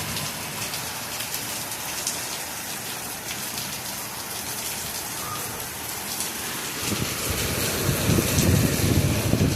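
Heavy rain pouring down steadily, with scattered drops ticking. A low rumble swells in about seven seconds in and eases off at the end.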